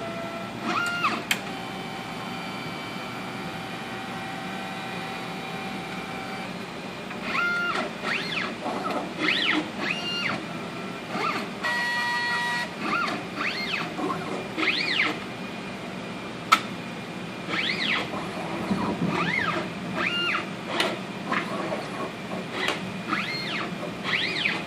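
HTS PAL autosampler's stepper motors driving its arm along the gantry: a series of whines that rise and fall in pitch as each move speeds up and slows down, with stretches of steady tone and a brief steady tone near the middle. One sharp click comes about two-thirds of the way through.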